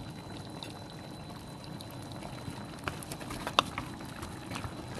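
Beef broth simmering in a pot of spareribs and potatoes: a steady bubbling hiss with scattered small pops, and a sharper click about three and a half seconds in.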